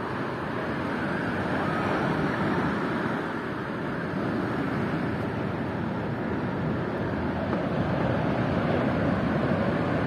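Steady outdoor rushing noise with no clear tone, swelling a little about two seconds in and again near the end.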